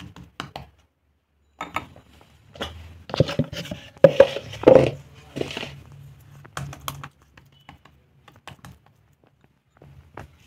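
Hands folding and pressing soft paratha dough on a smooth board: scattered light taps and clicks of fingers on the surface. A louder cluster of knocks comes about three to five seconds in.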